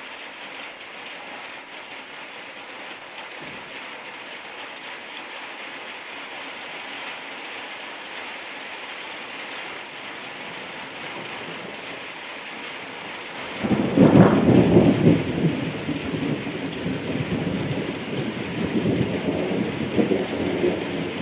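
Steady rain falling. About two-thirds of the way in, a loud thunderclap breaks suddenly, and its thunder keeps rumbling over the rain to the end.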